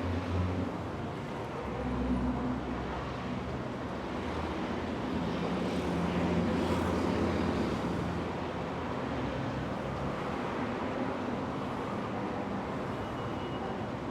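Street traffic ambience: a steady wash of car engine and tyre noise, with vehicles passing and swelling louder a few times, most strongly for a few seconds near the middle.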